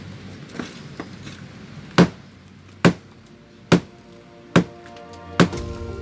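Steel-headed hammer striking a broken concrete slab with embedded rebar, breaking up the concrete. One light blow comes first, then from about two seconds in there are five sharp, heavy strikes, a little under a second apart.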